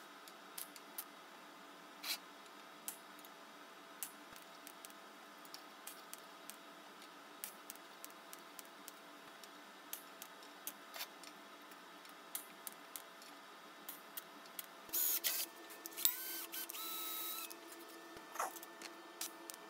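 TIG tack welding on a square-tube steel box: scattered sharp clicks and ticks, then about fifteen seconds in a louder arc of hissing with a steady whine for two or three seconds.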